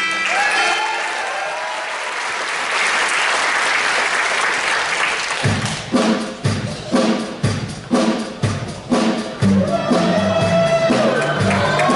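Theatre audience applauding as a song ends. About five seconds in, a live band starts the next number with sharp accented hits about two a second, and a melody line comes in near the end.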